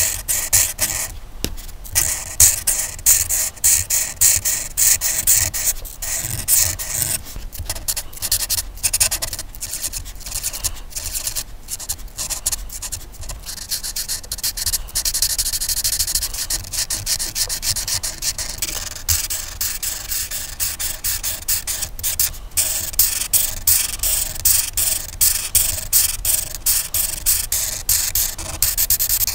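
Colouring-in strokes on paper: quick repeated scratchy strokes, with a steadier stretch of continuous rubbing about midway.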